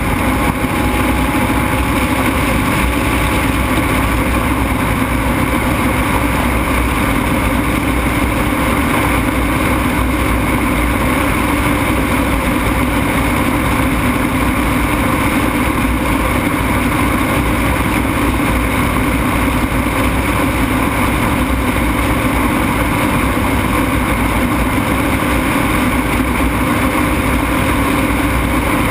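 Ultralight aircraft's engine running steadily in flight, with a constant drone and rushing air noise.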